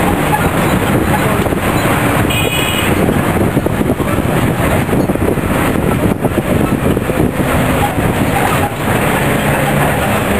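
Loud, steady road and engine noise of a moving vehicle, with a short horn toot about two seconds in.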